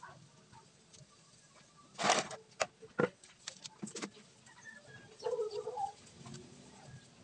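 A handful of sharp clicks and knocks about two to four seconds in, the first the loudest, from hands and a tool working on a square-tube steel window grill, then a short pitched sound a little after five seconds.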